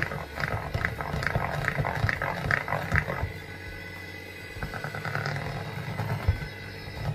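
Electric hand mixer running, its twin beaters whirring and rattling against a plastic bowl as they beat waffle batter smooth. The sound eases off for about a second, roughly three seconds in.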